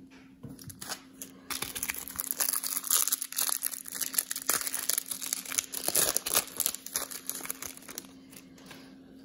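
Plastic wrapper of a 2019 Prizm football cello pack crinkling and tearing as it is ripped open by hand, a dense crackling for several seconds that dies away about eight seconds in. A faint steady hum lies underneath.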